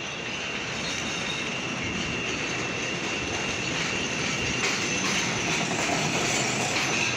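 CTA Bombardier 5000-series 'L' train pulling into the station past the platform: steady rumble of steel wheels on rail with a thin, high wheel squeal, growing a little louder as the cars draw alongside.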